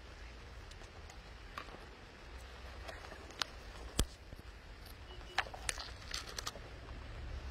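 Quiet ambience: a low steady hum with a few sharp clicks scattered through it, the loudest about four seconds in and a small cluster near the end.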